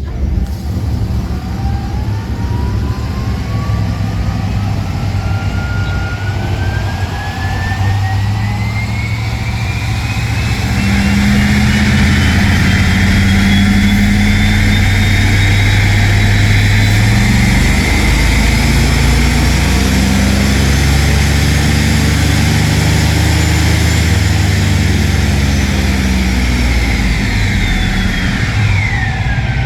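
Ford 302 V8 under a long wide-open pull on a chassis dyno, engine and rollers rising in pitch for about 24 seconds with a climbing whine, then dropping quickly as it comes off the throttle near the end.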